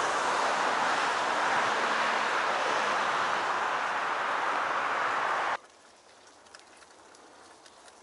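A steady rushing outdoor noise that cuts off suddenly a little past halfway. After it comes a quiet forest background with a few faint clicks.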